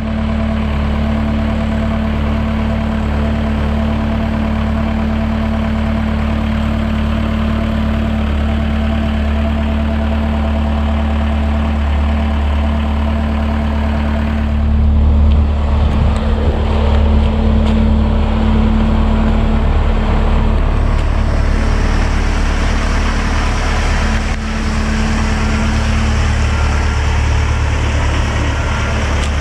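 The engine of a 2014 Genie S-65 boom lift running steadily, a little louder for a few seconds about halfway through.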